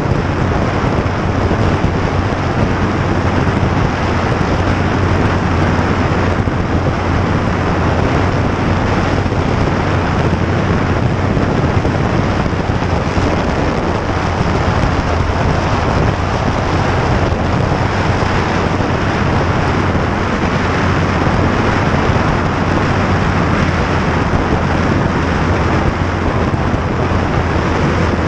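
Yamaha MT-25's parallel-twin engine held flat out near its top speed of about 184 km/h, a steady drone under heavy, unbroken wind rush on the microphone.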